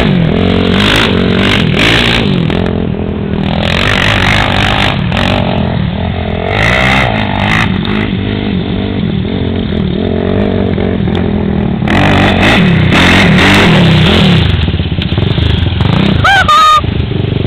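Sport quad's engine revving up and down again and again as it spins and slides through loose sand, quieter in the middle and louder again in the second half as it comes close.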